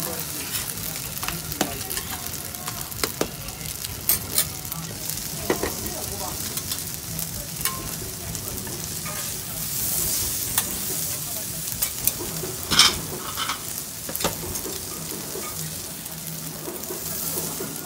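Food sizzling on a large iron teppan griddle, with metal spatulas scraping and clacking against the hot plate as the noodles and sausages are turned and scooped. The sizzle is steady, broken by many sharp spatula clicks, the loudest about thirteen seconds in.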